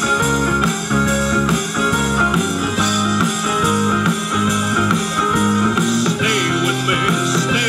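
A live rock band playing with electric guitars, bass, drum kit and keyboard, the guitar prominent over a moving bass line.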